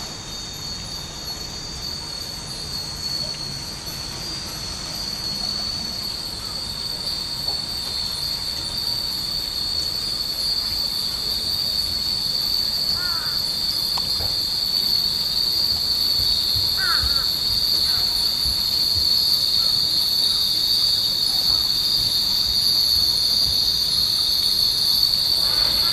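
Many small glass wind chimes (fūrin) jingling together into a steady, high-pitched shimmer that grows louder, with a couple of short bird chirps partway through.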